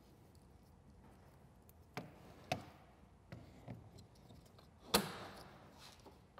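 A few scattered sharp plastic clicks and taps, the loudest single snap about five seconds in, as the plastic front grille of a Polaris RZR XP 1000 and its wiring connectors are handled and fitted into the front fascia.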